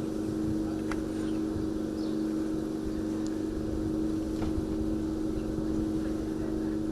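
A machine or engine running steadily, giving an even hum with two constant low tones over a low rumble, with a few faint ticks.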